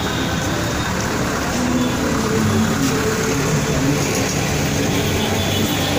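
Engines of decorated rally trucks running as they drive past, over a steady din of street noise.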